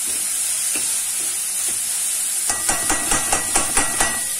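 Chopped onions sizzling as they fry in oil in a stainless steel kadhai. In the second half a metal spoon stirs and scrapes against the pan in a quick run of clicks, about six a second.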